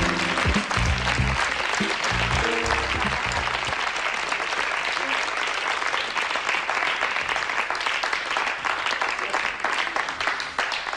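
Studio audience applauding steadily, with a short burst of music carrying low bass notes over the first four seconds or so.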